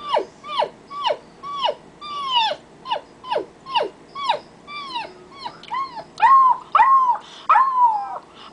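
A woman's vocal impression of a small dog whimpering and yipping: a quick run of short high yelps, each dropping sharply in pitch, about two or three a second, turning into longer, louder whines near the end.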